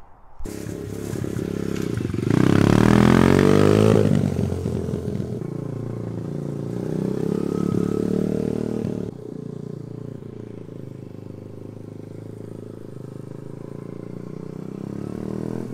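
Small pit bike's single-cylinder engine being ridden, revving up and down. It is loudest as it accelerates about two to four seconds in, then drops to lower, steadier revs about nine seconds in.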